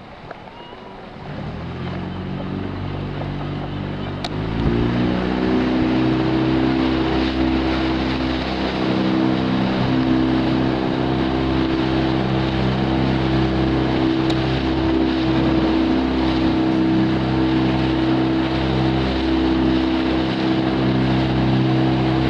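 Motorboat engine picking up about a second in, revving higher around four to five seconds in, then running steadily at speed.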